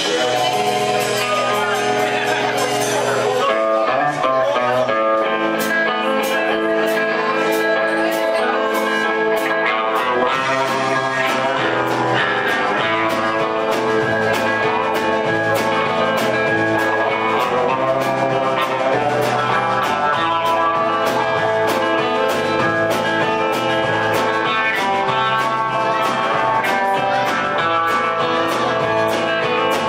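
A live band playing a guitar-led, spaghetti-western-style tune; a steady beat comes in about five seconds in.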